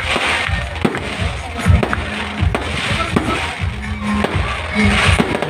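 Fireworks going off in irregular bangs with crackling, over music playing and crowd noise.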